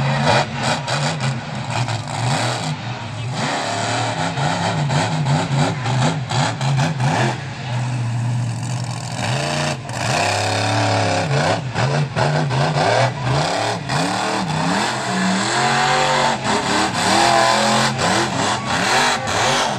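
Monster truck engine revving hard over and over, its pitch sweeping up and down in quick surges as the truck drives and spins.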